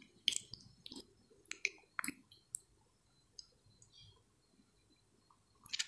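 Faint, irregularly spaced small clicks, about a dozen, with a short cluster near the end, in near-quiet room tone.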